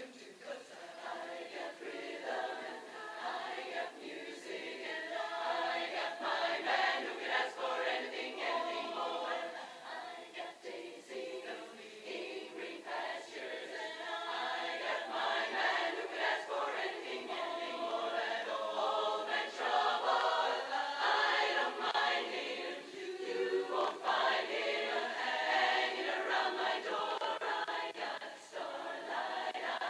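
Women's barbershop chorus singing a cappella in close harmony, many voices together, swelling louder about a third of the way in.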